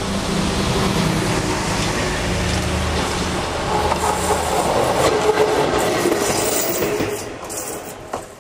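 A diesel dump truck passes first. Then a Meitetsu Mo 750 single-car electric railcar runs past, its wheels clicking over the rail joints, and the sound falls away sharply after about seven seconds.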